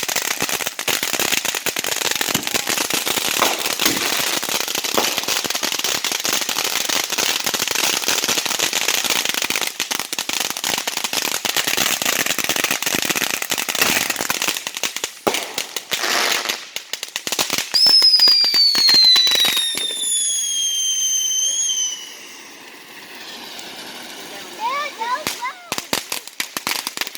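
Consumer fireworks going off: a long run of rapid crackling and popping for about fifteen seconds, then a loud whistle falling in pitch for about three seconds, followed by scattered pops near the end.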